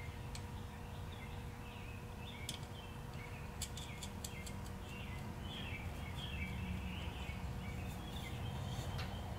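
Faint small clicks of a wire terminal and nut being handled at a generator's rear terminal, over a steady low hum, with faint bird chirps throughout.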